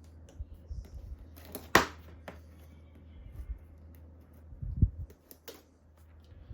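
Handling noise from assembling a small model kit: scattered clicks and taps of small parts and tools on a work surface, with one sharp click about two seconds in and a dull thump near the end, over a steady low hum.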